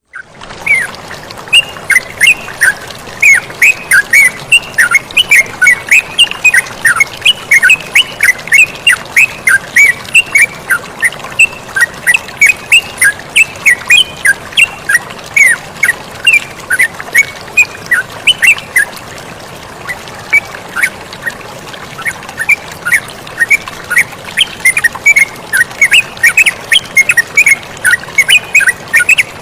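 Yellow-vented bulbuls giving a fast, busy chatter of short sweeping calls over a steady rush of flowing water.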